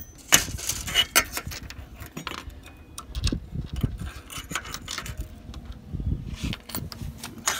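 Small metal parts of a solar panel mounting bracket clinking and knocking as they are handled, with a few sharp clicks in the first second or so.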